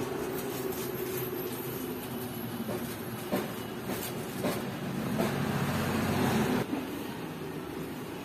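Steady mechanical hum of a running machine, with a few short metallic knocks a little past a third of the way in and a louder swell for about a second and a half after the middle.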